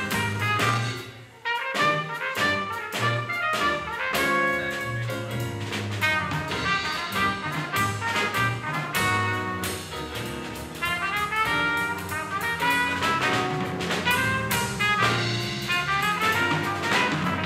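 Small live jazz band playing: a trumpet carries the melody over electric keyboard, drum kit and electric bass, with a brief break in the playing about a second and a half in.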